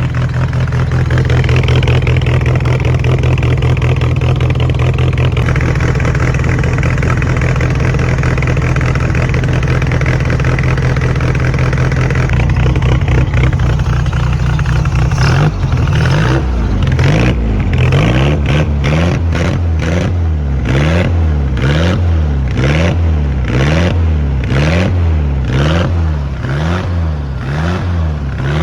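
1966 VW Beetle's air-cooled flat-four running through a new exhaust, idling steadily at first. From about halfway through it is revved again and again, its pitch rising and falling roughly once a second.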